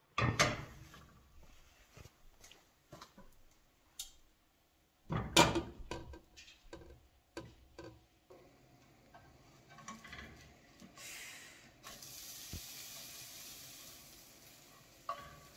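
Pan and cooking utensils clattering on a gas stove, with a loud clank right at the start and another about five seconds in, plus smaller clicks between. Near the end a steady sizzle of a crepe cooking in the pan.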